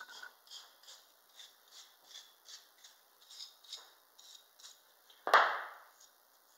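A small brush sweeping grinder dust off cut stained-glass pieces, with short, soft strokes about two to three a second. Just past five seconds there is one sharp, loud clack of glass as a piece is lifted from the panel.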